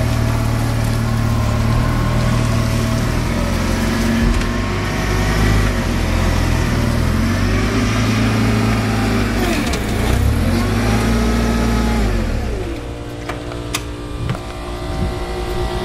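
2004 Toyota propane forklift's engine running, revving up and down a few times as the truck moves its load, then dropping to a steady idle about twelve seconds in. A sharp click comes near the end.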